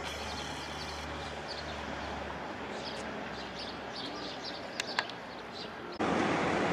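Small birds chirping in short repeated calls over a steady background hum, with two sharp clicks about five seconds in. Near the end a louder, even rushing noise sets in suddenly.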